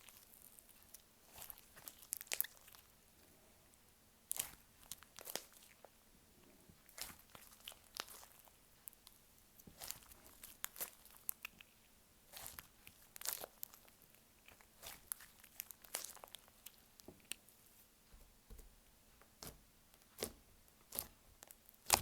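Slime squished and stretched by hand, giving irregular sticky clicks and small pops, a few each second.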